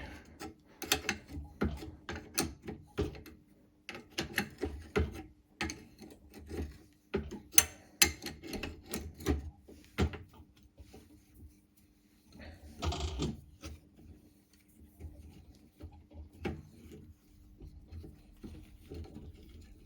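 Irregular metallic clicks and knocks of an open-ended spanner working a seized, broken brake-caliper bolt loose, the stub built up with stick-weld so the spanner can grip it. A short scraping rasp comes about two-thirds of the way through, and a faint steady hum runs underneath from then on.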